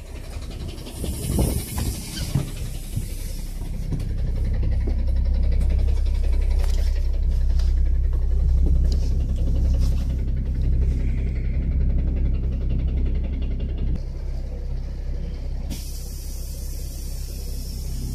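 Bus engine running with a deep rumble, heard from inside the passenger cabin as the bus drives. There is a hiss of air near the start, and the rumble is loudest through the middle.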